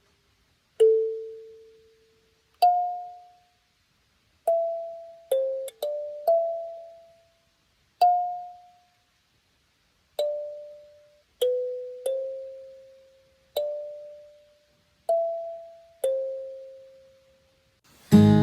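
Background music: a slow, sparse melody of single struck notes, each ringing out and fading before the next, about a dozen in all. Just before the end, a fuller music track with guitar comes in.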